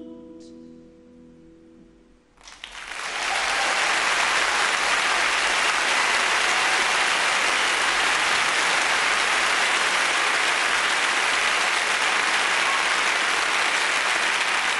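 The last sung note and the orchestra's final chord die away. About two and a half seconds in, a large audience breaks into applause, which holds loud and steady.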